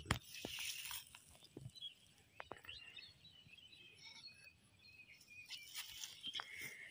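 A sharp click right at the start, then faint rustling and scattered small clicks of hands handling something small over grass, with faint high chirps in the background.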